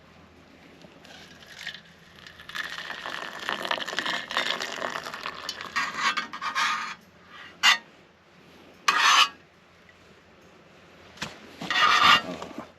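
Rubbing and scraping for several seconds, then three short, sharp scrapes.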